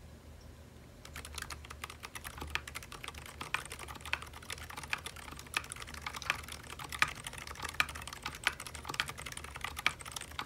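Typing on a Sidewinder custom mechanical keyboard in HHKB layout, fitted with Zilent V2 silent tactile switches: a quick, continuous run of soft keystroke clicks starting about a second in.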